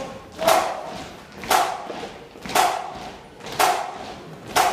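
A drum struck in a slow, steady beat, about one stroke a second, five strokes, each ringing briefly.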